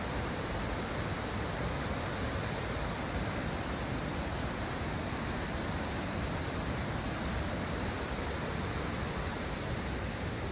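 Rushing water, a steady unbroken rush with no pauses or changes.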